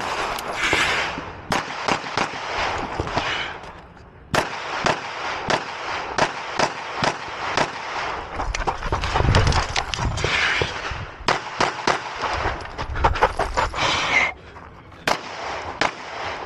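Handgun fired in a rapid string of sharp shots at an uneven pace, as a competitor shoots a timed pistol stage. The firing lulls briefly about 4 seconds in and again near the end, then picks up again.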